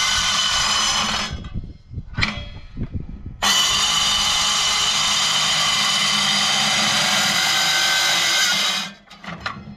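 Evolution handheld circular saw with a metal-cutting blade, cutting through steel with a steady high whine. The cut stops a little over a second in, with a few knocks in the gap. It starts again after about three and a half seconds and stops near the end, followed by clanking of the metal.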